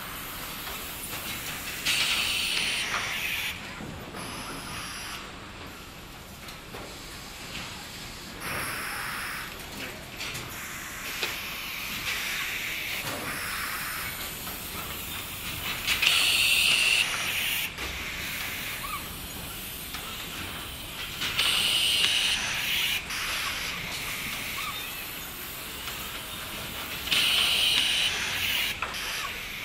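Robotic packaging-line machinery running, with bursts of compressed-air hiss from the pneumatic grippers and cylinders every few seconds over a steady machine noise. The loudest burst comes about halfway through.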